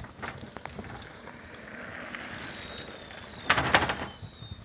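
Bicycles being ridden, with light ticking and clicking, and a louder burst of rattling about three and a half seconds in.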